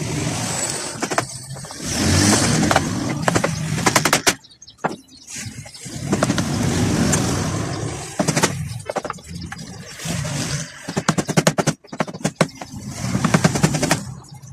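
Cordless drill-driver driving screws in about five short runs of the motor. Several runs end in a quick rattle of clicks, the clutch slipping as each screw seats.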